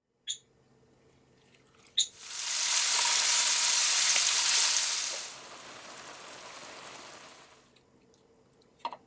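Pieces of chicken thigh sizzling in hot oil in a frying pan, loud for about three seconds, then quieter and fading out. A couple of light clicks come just before the sizzle, and a few more near the end.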